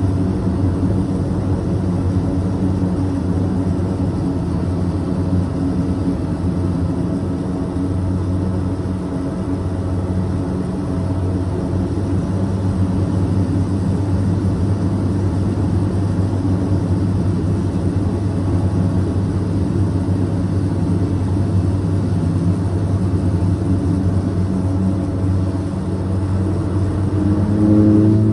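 Swearingen Metroliner's Garrett TPE331 turboprop engines running at low power while the aircraft taxis, heard from inside the cabin: a steady drone with a propeller hum. About a second before the end the sound grows louder and slightly higher in pitch.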